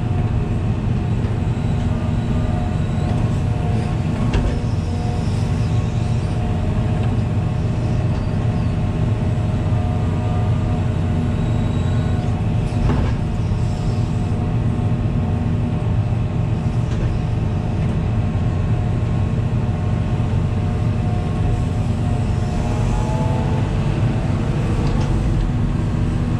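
Hitachi 350 long-reach excavator's diesel engine and hydraulics running steadily, heard from inside the cab as the boom and bucket are worked. A few faint clicks, and a short rising whine near the end as the hydraulics take load.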